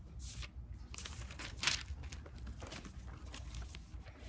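Paper rustling and crinkling as sheets are handled, in several short bursts, the loudest about a second and a half in, over a steady low room hum.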